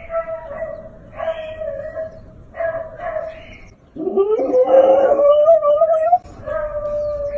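Siberian husky howling: a few short howls, then about four seconds in a louder, longer howl that rises in pitch, followed by a steadier howl near the end.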